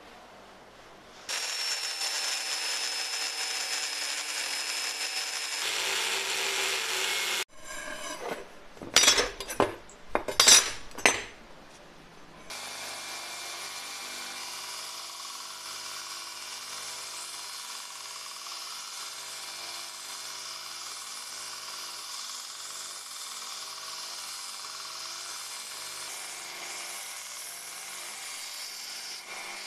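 Power tools working the steel of an old saw blade. First comes a loud cut with a high whine lasting about six seconds, then a few seconds of loud irregular clatter. After that a belt grinder runs steadily as the blade blank is ground against the belt, throwing sparks.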